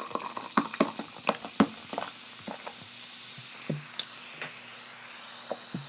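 A run of sharp clicks and taps, several in the first two seconds and a few scattered later, over a faint steady hiss: hands handling takeout food containers and packaging.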